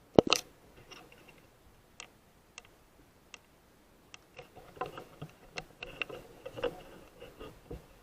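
A suppressed .243 Win rifle shot near the start, a sharp report with a second crack close behind it, followed by scattered single clicks and then bursts of clicking and rustling from handling the rifle.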